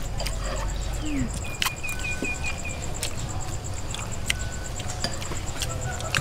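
Metal spoons clicking against food and each other as people eat, with a scattered sharp click every second or so. Behind it, insects trill steadily and high, and a short run of about six chirps comes about one and a half seconds in.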